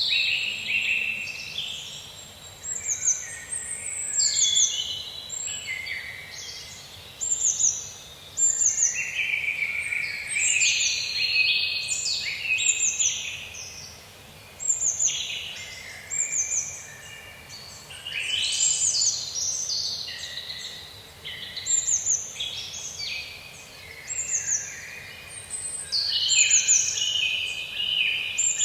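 Several songbirds singing and calling over one another in a continuous chorus, with many short, quick downward-sweeping high notes in phrases that come and go every second or two.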